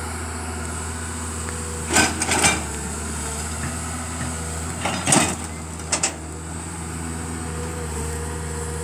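Komatsu hydraulic excavator's diesel engine running steadily as the bucket digs at a tree's base, with sharp knocks and cracks twice about two seconds in and again around five and six seconds in, from the bucket striking wood and soil.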